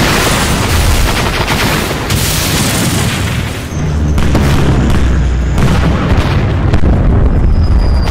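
War-film battle sound effects: a loud, continuous din of explosions and gunfire with a heavy low rumble, starting abruptly, with a brief dip a little under four seconds in.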